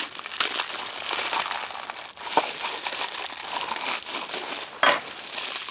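Crinkling and rustling of plastic packaging as the grinder's accessories are handled. There are a few light knocks, and near the end a brief clink with a short ring.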